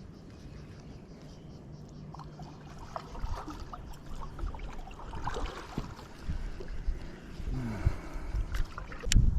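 Water sloshing and splashing around a kayak, with scattered knocks and clicks on the hull that grow louder after about three seconds and a sharp knock near the end.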